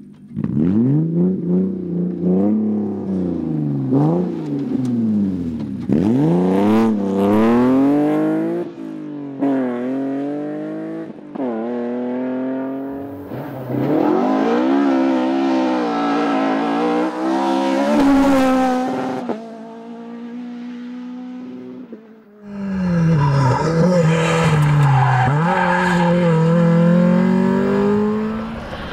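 Rally car engines at full throttle, revs repeatedly climbing and dropping sharply through gear changes and lifts. After a sudden break about two-thirds through, another car is heard accelerating and shifting.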